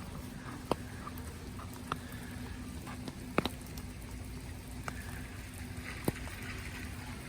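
Outdoor street ambience: a steady low hum and rumble with sharp ticks every second or so.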